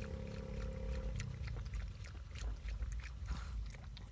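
A dog lapping water from a small glass held in a hand: a run of quick, irregular wet licks, several a second. It is drinking eagerly because it is thirsty.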